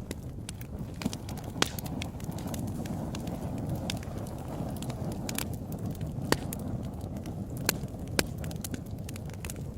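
Wood fire in a fireplace crackling: a steady low rush of burning with scattered sharp pops, the loudest about a second and a half in and a few more in the second half.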